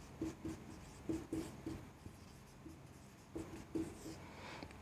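Marker pen writing on a whiteboard: a string of short, irregular squeaks and scratches as each letter is drawn, with a brief pause partway through.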